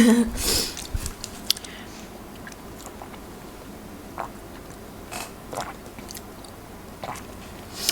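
A person chewing and biting food close to the microphone: a loud bite at the very start, then scattered small clicks and mouth noises.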